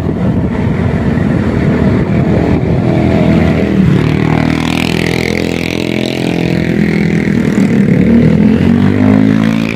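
KCIC high-speed electric trainset passing close by: a loud, steady rush with a hum of tones running through it, the tones bending in pitch near the end.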